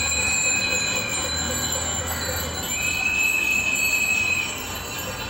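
Many bicycle bells ringing together in long bursts, one dying away about a second in and another from near three seconds to about four and a half, over a low rumble.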